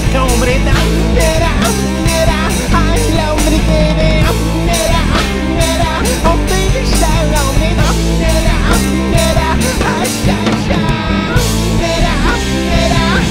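Rock song: a band playing at full volume, with drums keeping a steady beat and a lead melody bending up and down in pitch. Near the end the drums and bass drop out for about a second and a half, then come back in.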